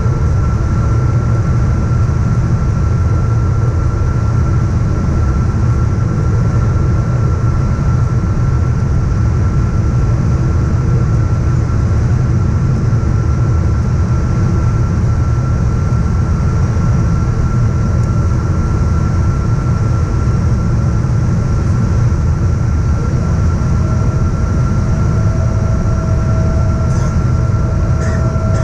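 Steady cabin noise inside a Boeing 777-236ER on its descent to land: a low rumble of engines and airflow with a steady whine over it. A second, lower tone joins about 24 seconds in.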